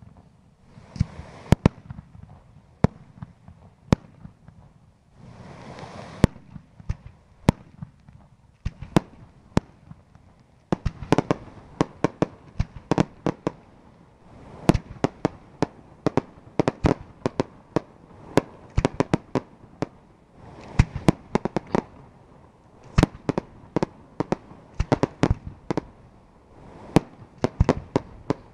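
Aerial fireworks display: a series of sharp bangs from shells bursting, spaced out at first, then coming in dense rapid volleys from about eleven seconds in, with a few short hissing rushes between them.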